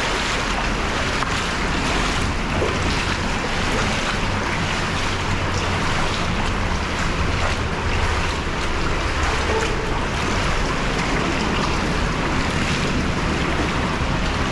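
Waterfall rushing: a steady, continuous roar of falling water.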